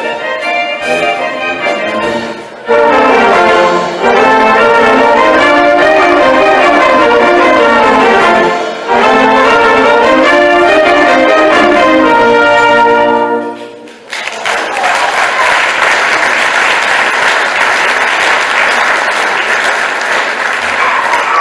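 Bavarian brass band playing the close of a dance tune in loud, held chords, stopping about two-thirds of the way through. Audience applause follows to the end.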